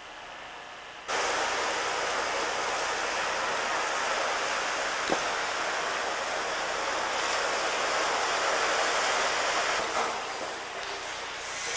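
Steady rushing outdoor noise of wind and surf. It cuts in abruptly about a second in and eases somewhat near the end, with a single faint click midway.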